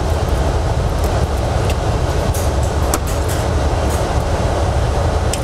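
Steady blower noise of a laminar airflow cabinet: a constant low rumble with a hiss of moving air. A few faint clicks of steel forceps and scalpel touching the work surface.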